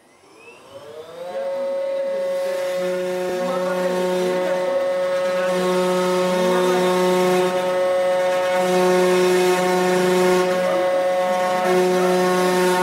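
Desktop CNC wood router's spindle spinning up with a rising whine, then running at a steady high pitch, with a lower motor hum cutting in and out every couple of seconds as the machine works.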